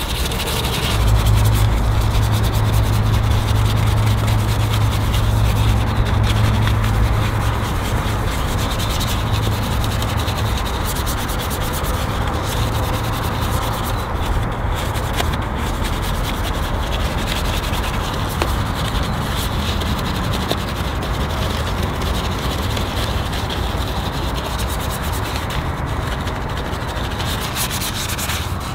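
Continuous rubbing, scrubbing noise with no speech, joined by a low machine hum that starts about a second in and drops away after several seconds.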